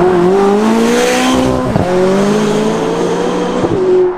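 McLaren 570GT's twin-turbo V8 accelerating hard, its note climbing in pitch through the gears, with two quick upshifts, about a second and a half in and near the end, each dropping the pitch before it climbs again.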